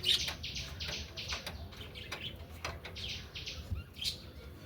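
Small birds chirping in rapid, repeated calls, with a few sharp clicks mixed in.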